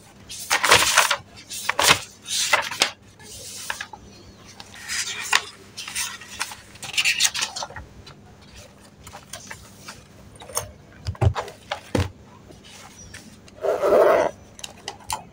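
Paper sheets rustling as printed pages are handled and flipped on a desk, in several short bursts. Two sharp clicks follow, then a fabric pencil case's zipper is pulled open near the end.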